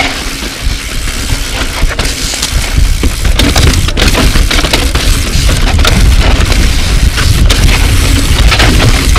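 Mountain bike clattering and rattling over a rocky dirt trail, with many irregular knocks and cracks. Wind rumbles heavily on the microphone.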